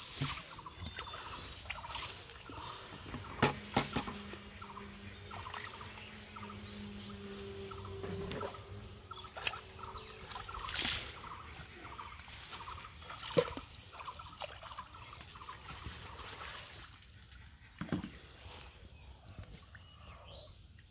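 Shallow muddy water splashing and sloshing as a person wades through it and grabs for fish by hand, with scattered sharp splashes. A low steady hum runs for about six seconds in the middle.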